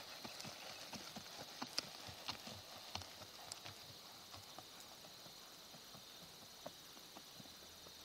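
Hoofbeats of a ridden palomino gelding on soft arena sand: a quick run of soft thuds with a few sharper knocks, growing fainter and sparser after about halfway as the horse moves off.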